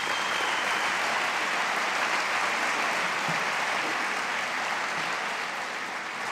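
Congregation applauding, a steady sustained clapping.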